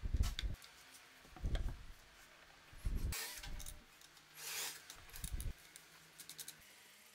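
Hand handling of plywood parts and wing nuts: several dull knocks of wood on the bench, two short scrapes in the middle, and light metallic clicks later on as wing nuts are fitted onto bolts.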